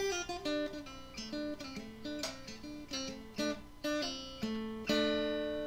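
Intro music: an acoustic guitar picking a run of notes, then striking a chord about five seconds in that rings on and fades.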